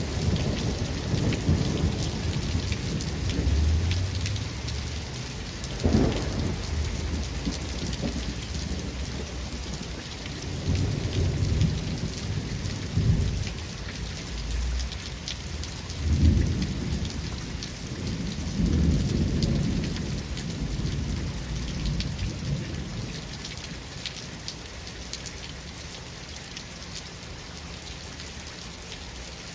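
Steady rain falling with rolling thunder. There are low rumbles that come and go and two sharper claps, one early and one just past the middle. The thunder dies away near the end while the rain goes on.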